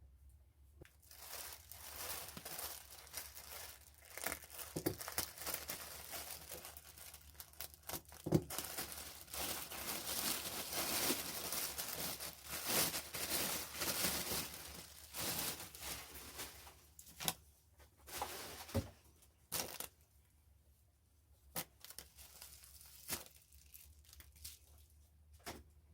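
Packaging, most likely plastic or paper, being torn open and crinkled by hand. There is dense rustling for most of the time, then a few separate short crackles and snaps near the end.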